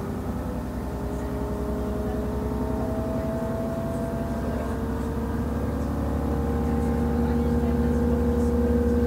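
MTU 12V183 TD13 V12 diesel engine of a DB class 628.4 railcar, heard from on board, running under load. Its pitch rises slowly and the sound grows steadily louder as the train picks up speed.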